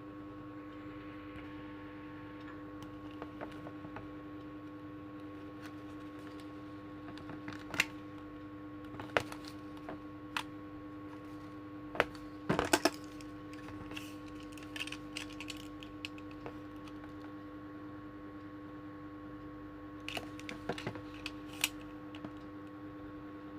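Scattered sharp plastic clicks and taps from a DX toy transformation bracelet being handled and its buttons pressed, in two clusters, the busiest in the middle. A steady electrical hum runs underneath.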